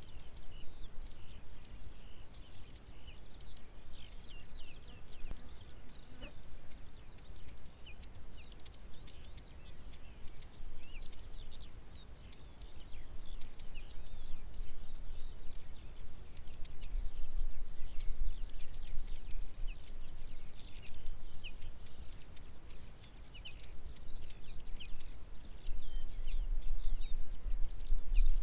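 Outdoor field ambience: wind rumbling on the microphone, strongest around the middle and near the end, over many brief bird chirps and a steady high-pitched trill.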